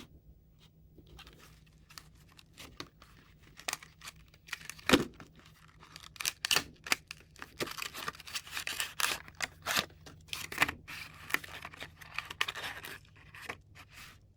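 Fidget spinner packaging being opened by hand: irregular tearing, crinkling and clicks. It gets busier and louder about four seconds in and stops near the end.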